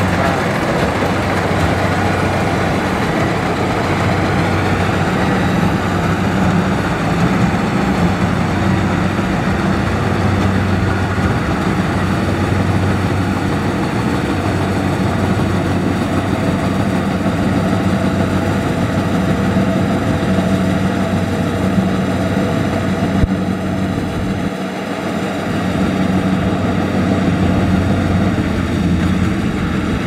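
Kubota DC70 rice combine harvester running steadily as it cuts and threshes rice in the field, a continuous deep engine hum with the machine's mechanical noise over it.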